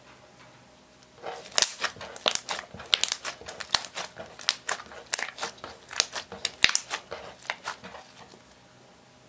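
Pink-tinted clear slime squeezed and kneaded by hand, giving a dense, irregular run of sharp clicks and pops. It starts about a second in and thins out near the end.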